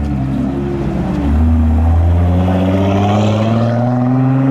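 Nissan GT-R R35's twin-turbo V6 accelerating away. Its engine note dips briefly about a second in, then rises steadily in pitch and grows louder.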